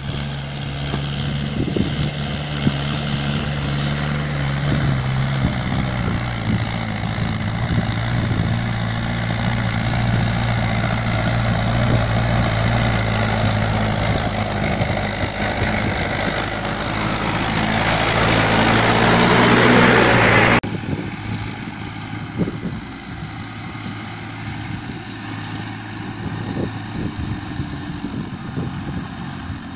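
Diesel tractor engine pulling a loaded trolley, running steadily and growing louder as it approaches; the sound cuts off abruptly about twenty seconds in. After that, a quieter tractor engine runs at a distance.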